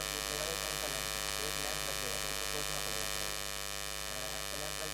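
Steady electrical hum with a buzzy edge, many tones stacked evenly up the whole range. The uploader puts this noise down to the inverter powering the lights.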